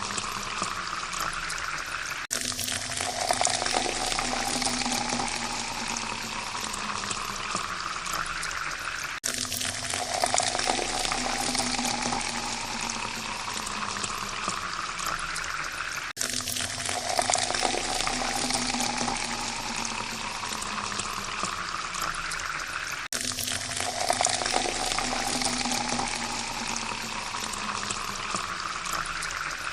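Water pouring into a glass, its pitch rising steadily as the glass fills. The same pour repeats about every seven seconds, each one cutting off abruptly and starting over.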